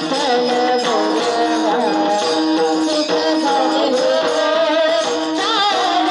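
Devotional kirtan music: a wavering melody over a steady held drone note, with jingling percussion keeping a regular beat.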